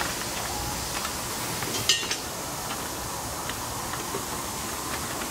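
Faint clicks and ticks of an 8 mm nut driver backing the aim-adjuster screw out of a plastic light bracket, and of the bracket being handled, with one sharper click about two seconds in, over a steady background hiss.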